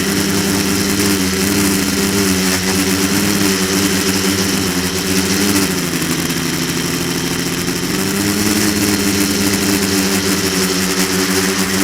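Quadcopter's electric motors and propellers buzzing steadily, heard through the camera mounted on it. About six seconds in the pitch drops for roughly two seconds, then climbs back up.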